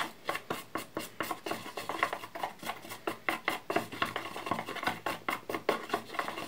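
A utensil stirring and scraping a paste of green and yellow cosmetic clay in a white plastic tub, with about four quick clicks and scrapes a second.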